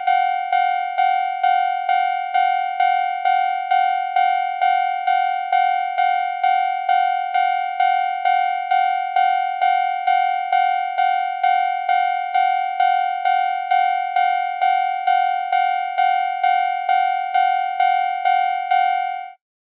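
Japanese railroad crossing warning bell ringing its 'kan-kan' alarm, a little over two even strikes a second, then cutting off suddenly near the end.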